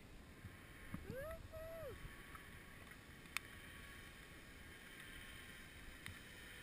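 Faint outdoor wind noise. About a second in, a distant voice calls out in a short rising-then-falling two-part whoop, and a single sharp click sounds a little after three seconds.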